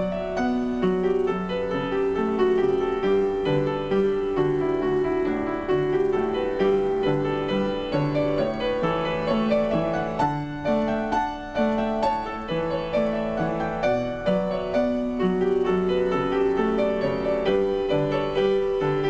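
Background piano music: a gentle melody of held notes moving over a steady lower accompaniment.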